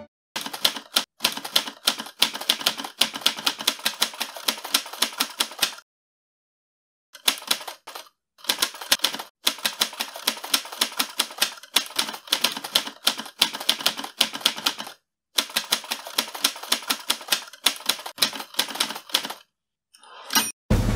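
Typewriter keystrokes clacking in quick runs of several strokes a second, with short pauses between runs: a typing sound effect laid under text being typed out on screen.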